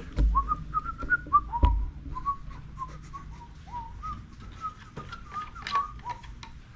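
A man whistling a tune to himself, a string of short notes at about the same pitch. Two dull knocks, near the start and about a second and a half in, are louder than the whistling, and there are a few lighter clicks later.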